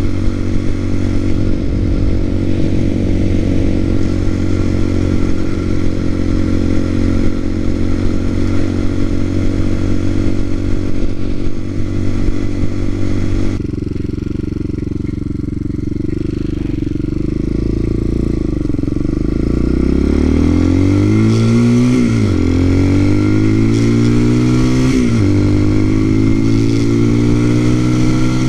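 TaoTao TBR7 motorcycle's small single-cylinder engine, geared up with a 17-tooth front sprocket, running at a steady cruise with wind and road noise. About halfway through it drops off suddenly and runs slower, then accelerates again, its note rising and falling back at two upshifts in the last few seconds.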